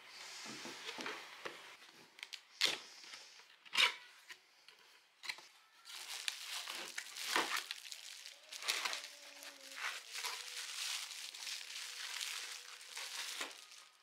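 Unboxing a camera lens: the cardboard box being handled and its flaps opened, with sharp clicks and rustles, then plastic wrapping crinkling steadily for the second half as the lens is unwrapped.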